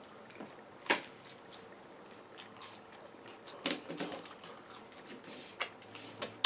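A person chewing pizza and breadsticks, with scattered short wet mouth clicks and smacks, a few in quick succession near the middle and again later.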